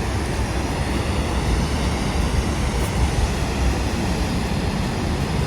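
Waterfall, a steady loud rush of falling water with a heavy low rumble.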